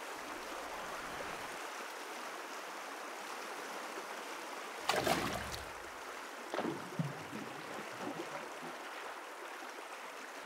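Swift river current rushing steadily. About five seconds in there is one louder, sudden splashing swish, followed by a few smaller splashes.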